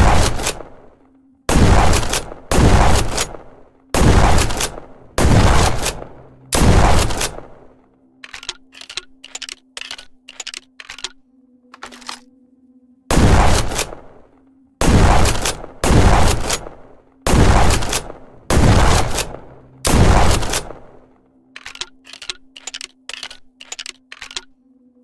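Trench gun (pump-action shotgun) sound effect: six loud shots about a second and a half apart, then a run of quick metallic clicks as shells are loaded. Then six more shots and another run of loading clicks.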